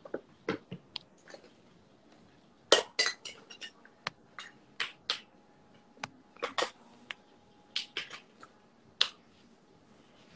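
Irregular light clicks and taps, a couple of dozen scattered unevenly, with a short rapid cluster about three seconds in and a single louder one near the end.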